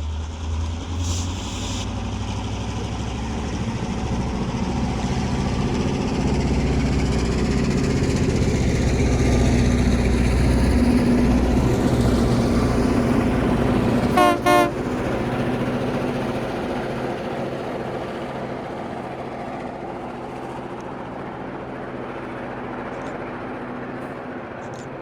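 Two Union Pacific diesel locomotives, led by GP38-2 UP 602 towing a snow flanger, running past a grade crossing. The engine drone builds to its loudest about halfway through, then fades, with two short horn toots just after the middle.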